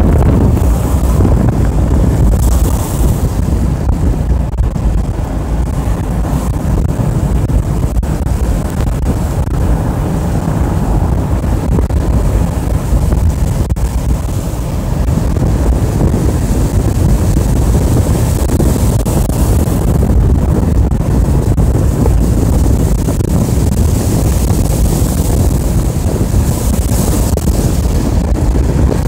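A car driving, heard from inside the cabin: a steady low rumble of engine and tyres on a wet road, with a hiss that swells and fades.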